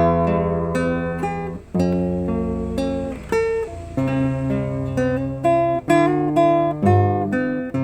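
Solo acoustic guitar playing a slow ballad: picked melody notes and occasional strums over held bass notes.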